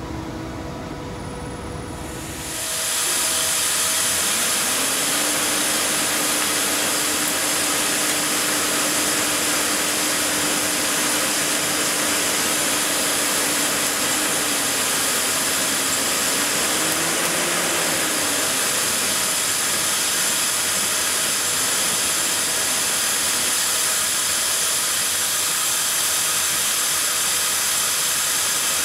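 CNC lathe drilling and boring a workpiece with a multifunction boring tool: a loud, steady hiss sets in a couple of seconds in. A faint tone rises a few seconds later and wavers briefly near the middle.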